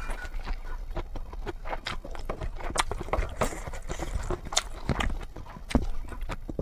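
Close-up eating sounds of someone eating spicy noodles: irregular wet mouth clicks and smacks of chewing, with a short hiss of slurping about halfway through.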